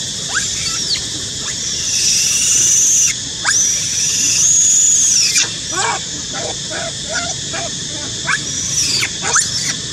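Macaque screaming: two long, high-pitched squeals, the first about two seconds in and the second about a second and a half later, lasting a second or two each, with shorter squeaky calls falling in pitch before and after. Typical of a young monkey crying out in distress.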